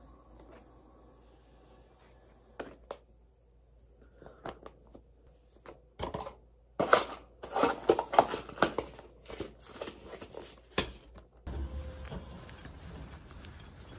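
Plastic packaging crinkling and rustling in short bursts as a clear poly bag and a plastic mailer bag are handled and torn open, loudest a little past the middle. Near the end it cuts to a steady outdoor background with a low rumble.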